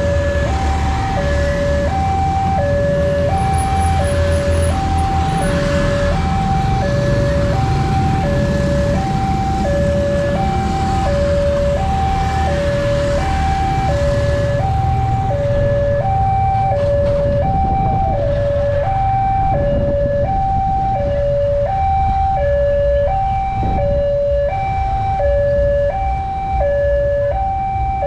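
Railway level-crossing warning alarm sounding a steady two-tone signal, a low and a higher tone alternating evenly, each held for under a second, which warns that a train is approaching and the crossing is closing. Under it, motorcycle and car traffic runs, thinning out about halfway through.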